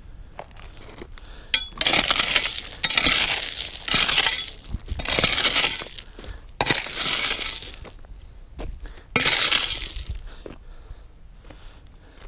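Loose rock scree crunching and clinking under shoes, in about six scuffing bursts of a second or so, the stones knocking against each other.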